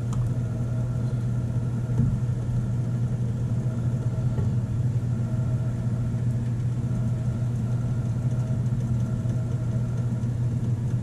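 A steady low motor hum with faint higher tones above it, unchanging throughout; a single light knock about two seconds in.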